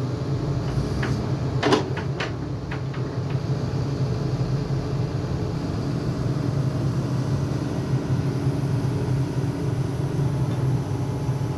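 Excavator's diesel engine running steadily, with a handful of sharp, irregular knocks and clanks between about one and three and a half seconds in.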